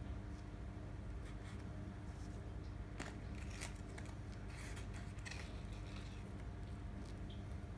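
Faint, scattered crinkles and rustles of crumpled greaseproof paper lining a baking tray as fingers press raspberries into the flapjack mixture, over a steady low hum.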